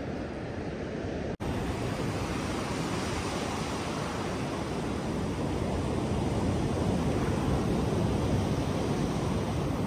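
Ocean surf washing up a flat sandy beach, a steady rushing wash with wind noise on the microphone. The sound cuts out for an instant about a second and a half in, then swells slightly as a wave runs up the sand.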